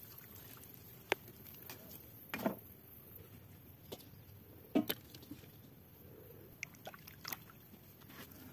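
Bamboo pieces being handled and pushed into shallow, weedy marsh water: a few scattered light knocks and small splashes, the two loudest about two and a half and five seconds in.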